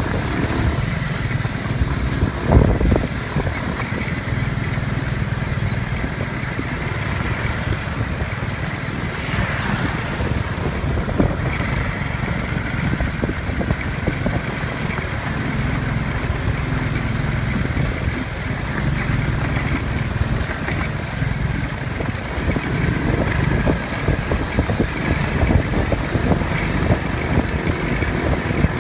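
Small off-road buggy engine running steadily on the move over a rough dirt road, with road noise and knocks from the bumps, and one louder jolt about two and a half seconds in.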